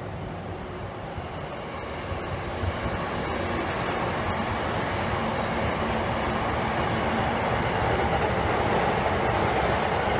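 Electric commuter trains running past on a multi-track line: a JR E235-series Yamanote Line set on the far track, then an E233-series Saikyo Line set on the nearer track. The noise of wheels on rail and traction motors builds steadily as the nearer train draws close.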